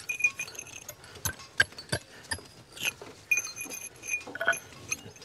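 Hammer striking a steel chisel to cut a small hole in sandstone for a splitting wedge: irregular sharp metallic clinks, some ringing briefly.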